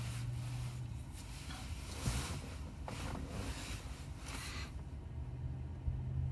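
Steady low hum in a car cabin, with a few swells of rustling noise between about one and five seconds in.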